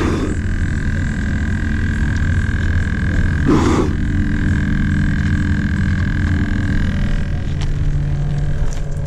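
Battery aerator pump buzzing steadily in a live-bait bucket, its bubbles churning the water. The hand in the bait water makes two short sloshes, at the start and about three and a half seconds in.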